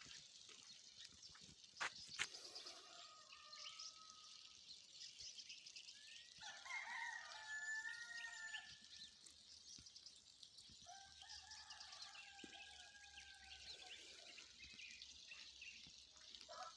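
Free-range roosters crowing faintly: three long, drawn-out crows, about three, six and eleven seconds in, over a steady high chirping background. Two sharp clicks about two seconds in.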